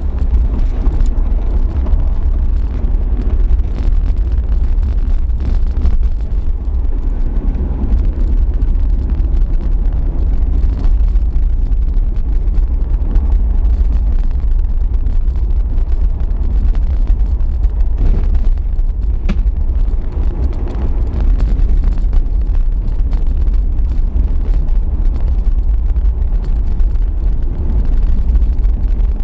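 Isuzu VehiCross V6 running at low speed on a rough dirt track, heard from inside the cabin. A heavy, steady rumble of engine and tyres dominates, with a few short knocks as it goes over bumps.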